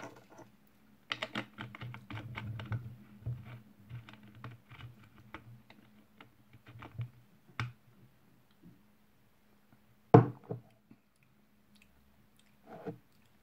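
Small clicks and taps from a glass and a plastic soda bottle being handled on a table, with one sharp knock about ten seconds in and a smaller one near the end. A low steady hum runs underneath.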